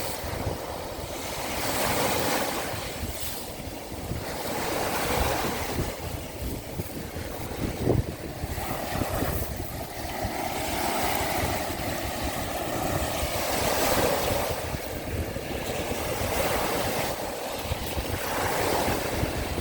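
Sea waves washing onto the shore, the surf swelling and easing every few seconds, with wind buffeting the microphone. There is a brief, louder hit about eight seconds in.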